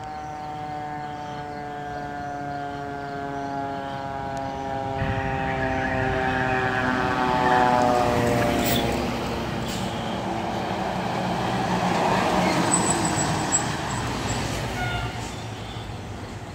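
Fire truck siren sounding one long tone that falls slowly in pitch, with a second falling tone joining about five seconds in as the truck approaches and passes. Then the rumble of the passing fire truck's engine and tyres, loudest twice near the middle.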